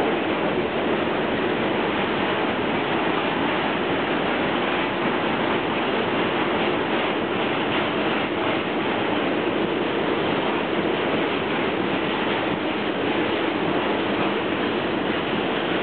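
Long freight train of empty hopper wagons rolling past in a steady rush of wheel and rail noise, with faint clicking about halfway through.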